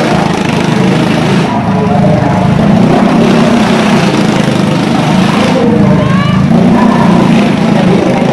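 Motorcycle engine running loudly inside the wooden wall-of-death drum, with a brief rising rev about six seconds in.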